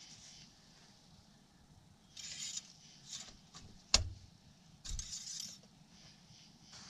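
Transmission dipstick and a rag being handled: rustling twice, and one sharp metallic click about four seconds in as the dipstick goes down into its tube, with a dull knock after it.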